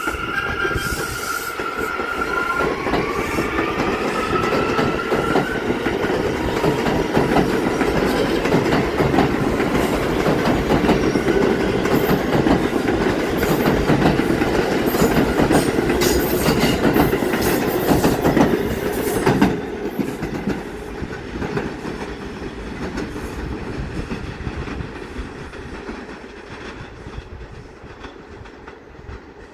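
R179 subway train running past on the next track: a dense rumble and clatter of steel wheels on the rails, with a rising whine in the first few seconds. It stays loud for about twenty seconds, then drops off and fades as the last car passes.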